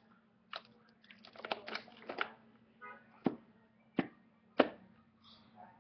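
Plastic action figures being handled and knocked against a hardwood floor: a run of light clicks and scuffs, then three sharp taps about two-thirds of a second apart.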